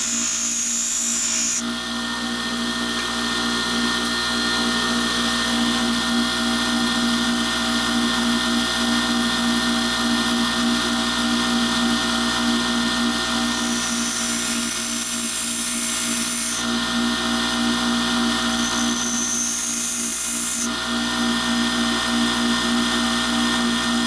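Pedestal grinder running with a steady motor hum while a small cutting tool is ground against its wheel to re-form broken cutting edges. The high grinding hiss comes and goes several times as the tool is pressed on and eased off.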